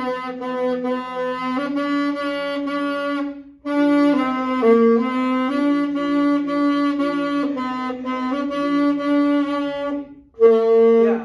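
A beginner playing a saxophone: a run of tongued notes stepping up and down in pitch, in three phrases with short breaks about a third of the way in and near the end, where one last short note sounds.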